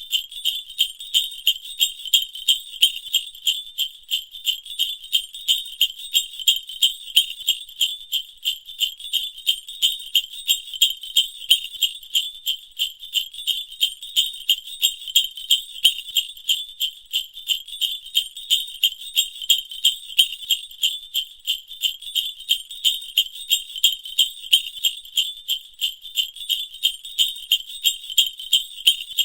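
Sleigh bells sound effect from the Voice Changer Plus app: bells jingling in a steady, even shaking rhythm. It is a thin, high jingle with no low end.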